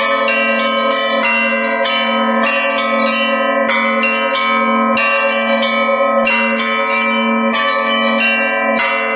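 Russian Orthodox church bells rung in a festal peal: several bells struck in quick, overlapping patterns, a new strike every half second or so, over the steady ring of a lower bell.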